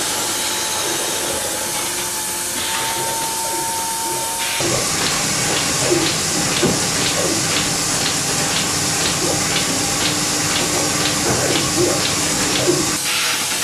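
Fullwood robotic milking unit running during a milking: a steady hiss of vacuum and milk flowing through the tubes. From about a third of the way in, a regular ticking about twice a second comes in, the pulsation of the milking cups.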